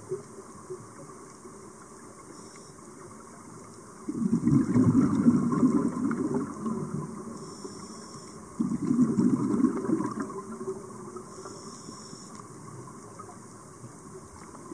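Scuba diver breathing through a regulator underwater: two long rushes of exhaled bubbles, about four seconds in and again about nine seconds in, each after a faint hiss of inhalation.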